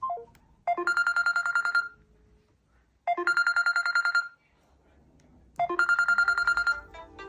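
Mobile phone incoming-call ringtone in an old telephone-bell style: three rapid trilling rings, each about a second long, about two and a half seconds apart. Just at the end a different, melodic ringtone starts.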